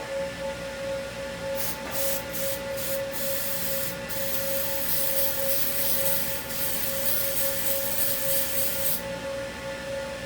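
Fire alarm signal sounding one steady tone, activated from a pull station during a system test. From about a second and a half in until about a second before the end, a harsh rubbing, scraping hiss lies over it.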